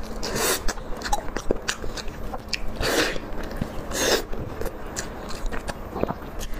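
Close-up eating sounds: crunchy bites into the crisp crust of a meat-filled sesame bun, loudest three times (about half a second in, near three seconds and about four seconds in), with wet chewing and small crackles of the crust in between.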